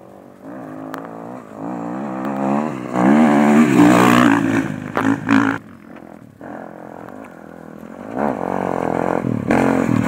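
Enduro dirt bike engine revving up and down as the rider throttles along a muddy track. It drops back about six seconds in, then grows louder as the bike comes close near the end.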